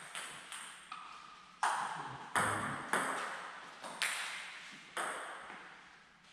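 Plastic table tennis ball bouncing: about eight sharp, echoing ticks over the first five seconds at an irregular, slowing pace, then a quiet spell.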